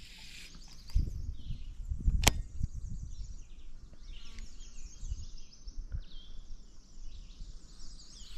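Baitcasting reel and rod being handled as a lure is worked: a sharp click about two seconds in, a few low knocks and faint handling noise. Birds chirp in the background throughout.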